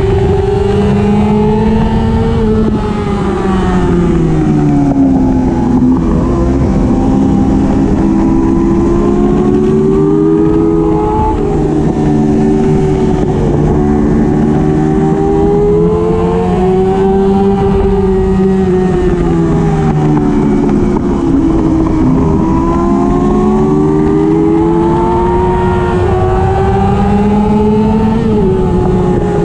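1999 Yamaha YZF-R6's 600 cc inline-four race engine at racing speed, heard from on board. Its pitch climbs and drops back several times as it is shifted through the gears and slides down under deceleration into corners. A steady rush of wind runs underneath.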